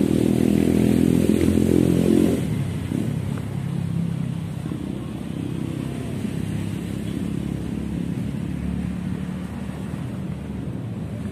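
Road traffic: a passing vehicle's engine runs loudly for the first two seconds or so, then eases off into a steady traffic hum.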